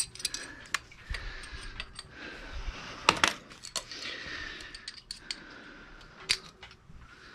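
Metal hand tools clinking and clattering on the floor as they are picked up and put down: a run of sharp metallic ticks, with two louder knocks a little after three seconds in.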